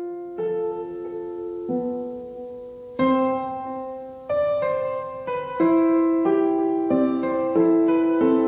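Background music: a slow, gentle piano tune, each note or chord struck and left to fade before the next.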